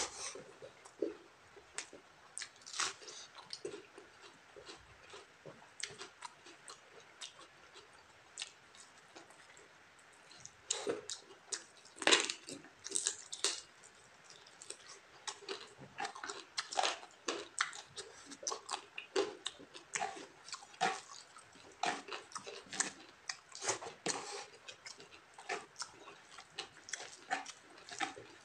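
Mouth sounds of eating chicken and rice by hand: chewing and lip smacks coming as many short, irregular smacks, with fingers working through the rice.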